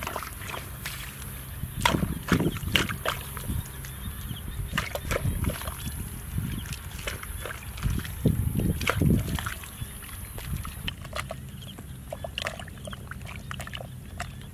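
A wooden-handled digging tool chopping and scraping into wet, waterlogged mud, giving irregular squelching thuds and knocks. The heaviest strokes come about two seconds in and again around eight to nine seconds in.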